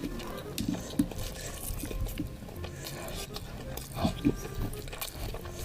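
Eating sounds from a mukbang: biryani being mixed and chewed, with scattered short clicks and smacks.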